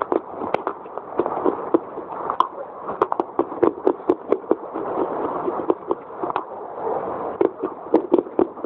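Close-miked soft crunching and chewing of a pale baked-clay 'biscuit', a fast run of crisp crackling clicks several times a second.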